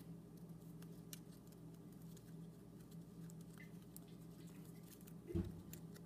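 Faint crinkling and small ticks of cardstock paper petals being bent back between the fingers, over a steady low hum, with a soft thump about five seconds in.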